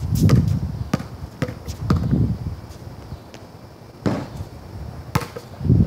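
Basketball bouncing and striking on a concrete driveway: a handful of sharp smacks at irregular spacing, with dull low thumps in between.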